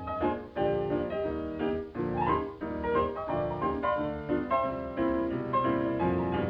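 Piano music played briskly, with quick runs of notes.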